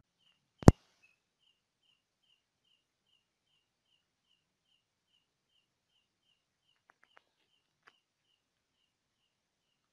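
A sharp click near the start, then faint high chirps repeating evenly at one pitch, about three a second, from a small night animal, with a few faint ticks near the end.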